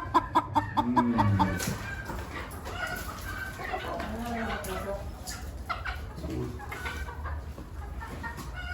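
Chickens clucking: a fast, even run of loud clucks, about four a second, that stops about a second and a half in, followed by quieter scattered clucks and calls.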